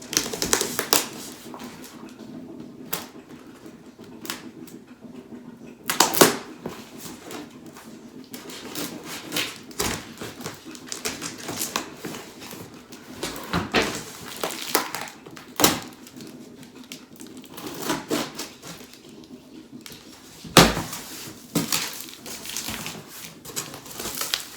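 Irregular rustling, clicks and knocks of a Christmas tree storage bag being handled.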